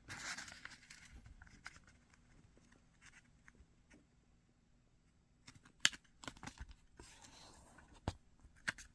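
A sheet of origami paper being folded in half into a triangle and creased: faint rustling, then a few short, sharp paper crinkles and taps.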